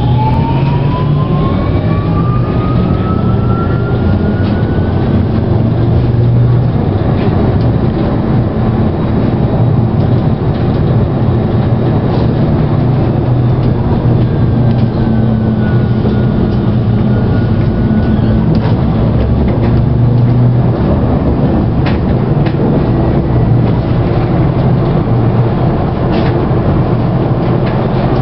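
First-batch Alstom Citadis tram running, heard from inside the passenger cabin: a steady low rumble of wheels on rail. The traction motors whine, rising in pitch over the first few seconds as the tram accelerates, and a fainter, level whine returns around the middle.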